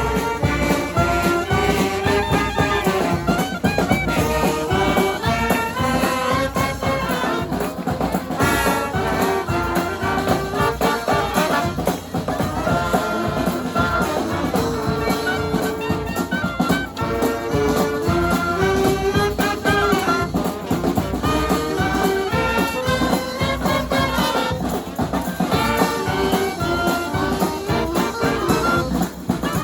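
Second-line brass band playing live: horns carry a melody over a steady drum beat.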